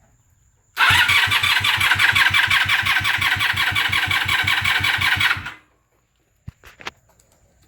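1997 Honda Magna VF750C's V4 engine being cranked by its electric starter for about five seconds, an even rapid chugging of about six or seven beats a second. It never fires and the cranking stops abruptly: the bike cranks but won't start, despite new plugs, a new battery, cleaned and synched carbs and even starter fluid.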